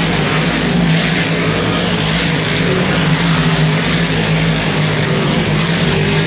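A pack of big-block dirt modifieds racing past at speed, their big-block V8 engines running loud and steady in one continuous blended sound.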